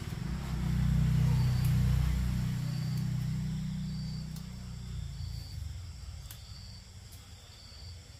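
A low, engine-like hum, loudest in the first two seconds and then fading away, over insects chirping about once a second.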